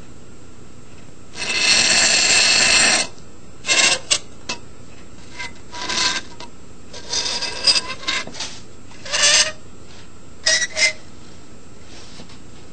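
Metal knife blade vibrating against dry ice, giving off squealing, rasping bursts: one long burst about a second and a half in, then shorter squeals on and off. The blade shakes only while it is still warmer than the ice.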